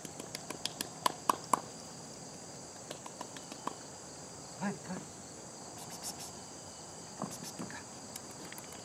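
Insects droning steadily in high, even tones. A quick run of sharp clicks in the first second and a half is the loudest thing, with a few softer short sounds later.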